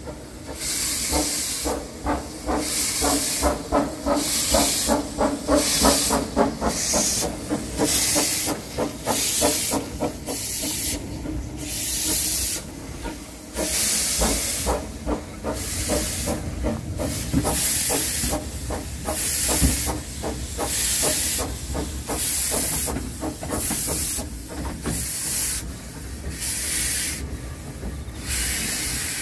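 1889 Baldwin 2 ft gauge steam locomotive working slowly, its exhaust chuffing about one and a half times a second over steady steam hiss, with quick clicking in the first half.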